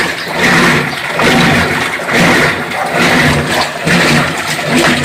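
Colormaq 11 kg top-loading washing machine running with water in the tub: a churning, watery noise with a motor hum that swells and fades a little more than once a second, as the agitator strokes back and forth.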